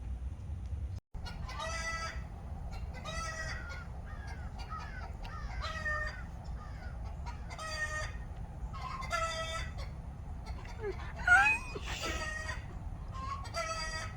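Chickens calling again and again, a short pitched call every second or two, with one louder call that slides in pitch about eleven seconds in, over a steady low rumble.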